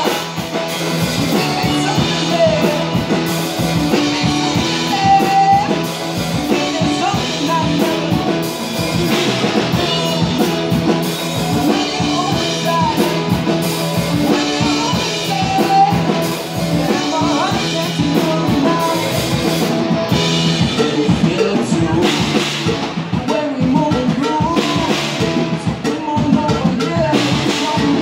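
Live rock band playing a song: a male lead vocal over electric guitars, keyboard and a drum kit keeping a steady beat, amplified through a PA.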